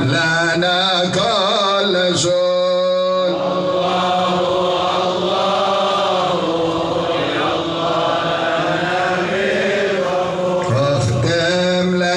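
Islamic devotional chanting by voices in Arabic, a slow melody with long held notes.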